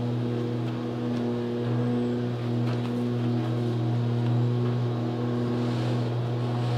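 A garden power tool's motor running steadily, a constant droning hum, with faint rustling of carpet being unrolled and smoothed.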